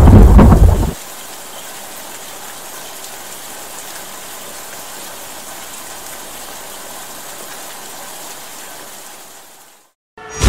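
A thunder rumble dies away about a second in, leaving steady rain that fades out near the end.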